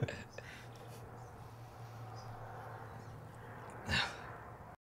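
Quiet outdoor ambience with a faint low hum, broken by one short rushing noise about four seconds in; the sound cuts off just before the end.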